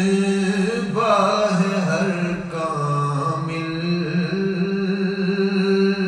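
A man chanting a devotional Arabic poem (naat) in long, drawn-out melodic lines, over a steady held drone.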